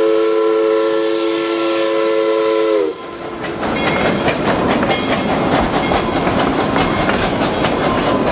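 Steam locomotive whistle sounding a long chord of several tones at once, dropping slightly in pitch as it stops about three seconds in. Then the narrow-gauge passenger cars rolling by, their wheels clicking quickly and steadily over the rail joints.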